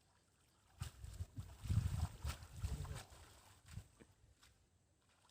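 Water splashing with irregular thumps and knocks for about three seconds, starting about a second in, from fish or gear being worked in the shallows of a pond.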